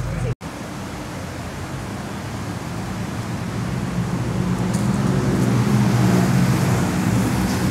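Rushing noise of a fast ride down a hill: wind on the microphone over a low rolling rumble, growing louder as the speed builds.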